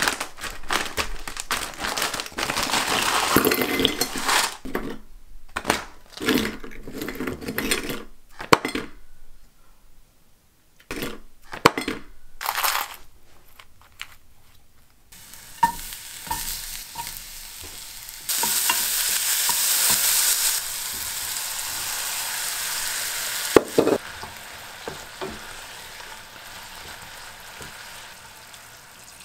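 Cooking in a pan: a utensil scrapes and stirs food in quick strokes, then a steady frying sizzle sets in, loudest for a couple of seconds past the middle, with a single sharp knock near the end.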